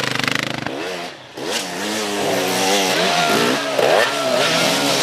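Enduro motorcycle engines revving hard under load, the pitch swinging up and down as the throttle is worked on a steep dirt climb. The sound drops away briefly about a second in, then picks up again.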